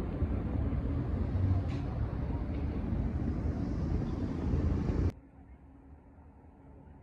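City street traffic noise, a steady low rumble of passing cars with some faint distant voices, that cuts off suddenly about five seconds in to near silence.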